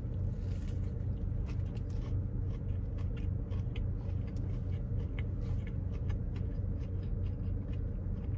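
Close-up chewing of a crispy chicken sandwich: soft crunches and little crackles of the breaded chicken, bun and lettuce, over a steady low hum in the car.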